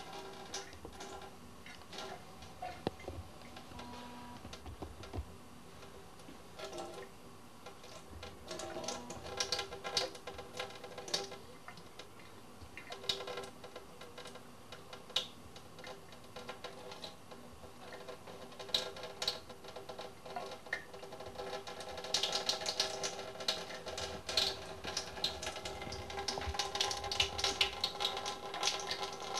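Thin stream of tap water running into a sink, with irregular small splashes and clicks that get busier and louder in the last third.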